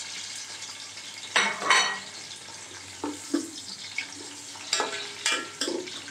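Sliced onions sizzling in hot oil in a metal pot, while a spoon stirs them and scrapes and knocks against the pot several times. The loudest scrapes come about a second and a half in. The onions are at the start of frying, on their way to being browned.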